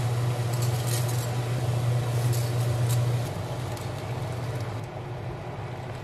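Water at a rolling boil in a stainless steel pot as spaghetti is lowered in and stirred: a steady low rumble with bubbling hiss, easing slightly about three seconds in.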